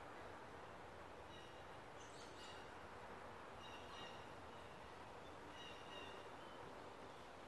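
Faint birdsong outdoors: a few short, high chirps every second or two over a steady low background hiss.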